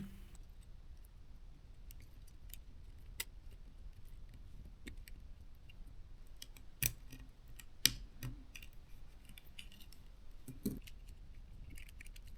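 Faint, scattered small clicks and taps from handling the plastic drone housing and its internal cable during reassembly, with two sharper clicks about seven and eight seconds in.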